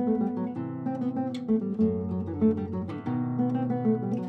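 Background music: an acoustic guitar playing a lively tune of plucked notes and strums.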